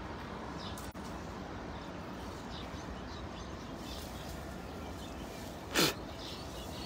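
Faint, steady outdoor background hiss, with one brief sharp sound near the end.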